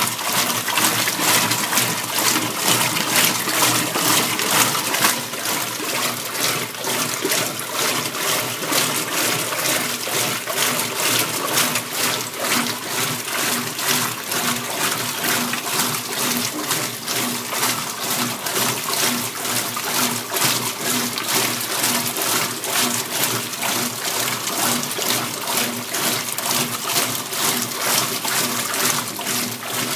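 Kenmore KLA7924FQ0 belt-drive top-load washing machine running an empty rinse cycle, with a steady rush of water in the tub. A faint, evenly pulsing hum runs under the water in the second half.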